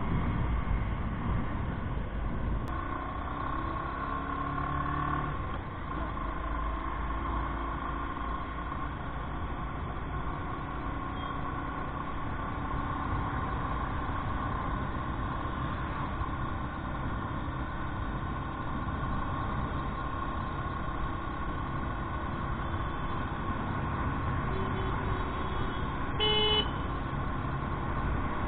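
Motorcycle engine running at a steady cruise with road and wind noise, heard through an SJ4000 Air action camera's built-in microphone, which sounds dull with no high end. A vehicle horn gives one short honk near the end.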